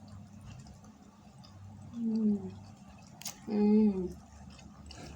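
A person eating chicken noodles, with two short humming vocal sounds of enjoyment falling in pitch, about two seconds and three and a half seconds in; the second is louder. Small wet mouth clicks and slurping sounds come in between, one sharp click just before the second hum.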